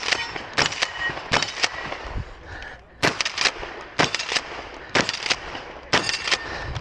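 Shotgun fired in quick pairs, about one pair a second, with a short lull about two seconds in, during a rapid IPSC-style stage run.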